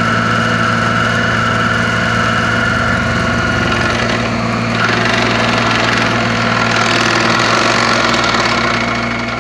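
Ditch Witch XT850 excavator tool carrier's engine running steadily, with a broad hissing noise joining it about five seconds in.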